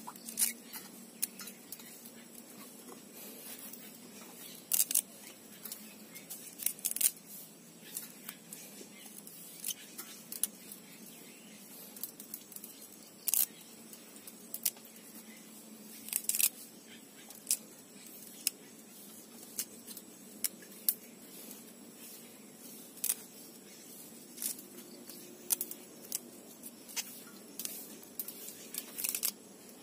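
Malunggay (moringa) leaves being stripped by hand from their stems into a stainless steel bowl: irregular small snaps and clicks of twigs and leaf stalks breaking, a few of them sharper and louder.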